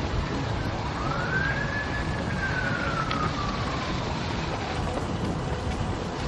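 An emergency vehicle siren sounds one slow wail, rising about a second in and then falling gradually over the next three seconds, over a steady rushing noise.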